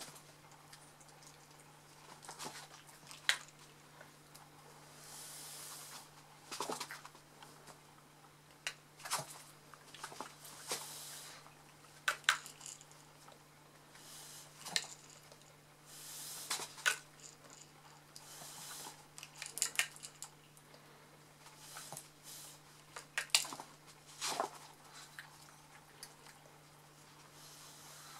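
Shih Tzu puppy's jaws snapping shut as it bites at soap bubbles: short, irregular clicks and snaps every second or two, over a faint steady low hum.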